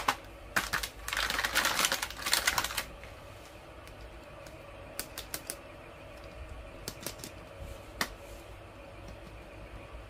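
Candy packaging being handled: a quick clatter of plastic and cardboard for about two seconds, then a few separate clicks and taps as the plastic Gems Surprise balls are picked up and held.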